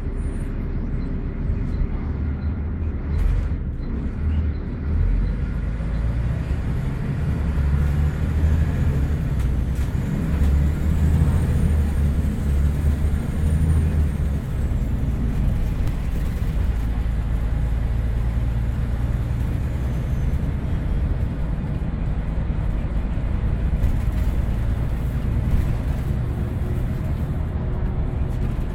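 Single-decker bus heard from inside the cabin while driving: a steady low engine rumble with road noise, the rumble swelling for several seconds about a third of the way in.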